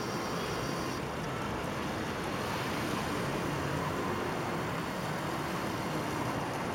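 Steady urban road traffic noise: a continuous hum of cars on a nearby street, with no distinct events standing out.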